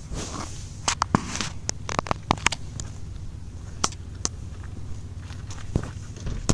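Handling noise from a recording phone being carried: irregular sharp clicks and short rustles over a steady low hum.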